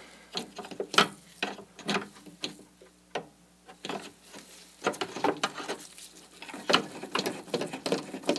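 Small, irregular metal clicks and ticks of a spanner turning the brake-rod bottle screw (turnbuckle) to loosen the brake tension, with a lull around the middle and quicker clicking again after about five seconds.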